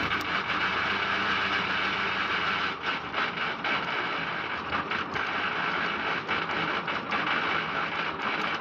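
Tractor-driven rotavator running, its gearbox giving a steady grinding gharghar with irregular clicks over the tractor engine. The rotavator is brand-new with its oil at level, and the cause of the gearbox noise is unknown to the owner.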